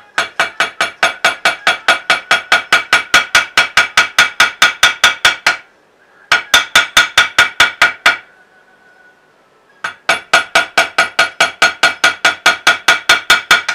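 Mallet striking a smooth King beveler (no texture) into vegetable-tanned leather in quick, even taps about five a second, each with a bright metallic ring from the tool. The tapping comes in three runs, with a short break about six seconds in and a longer one around eight to ten seconds.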